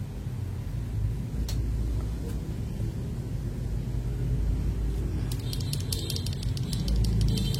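Small plastic mechanical keyboard switches clicking in a fast, even run starting about five seconds in, as they are worked during lubing, over a steady low rumble. Two single clicks come earlier.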